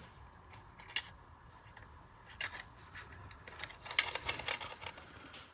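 Light, scattered clicks and taps from a toy O gauge locomotive and tender being handled: one about a second in, another halfway through, and a short cluster near the end.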